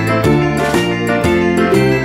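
Background music: a bright instrumental tune, its notes changing about twice a second.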